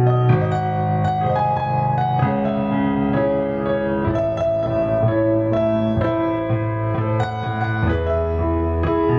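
Background piano music: a slow melody over held low bass notes.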